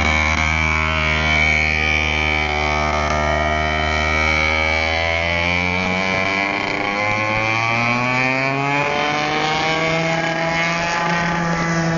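Racing kart engine running at a steady pitch, then climbing in pitch as the kart speeds up from about halfway through, before holding steady again.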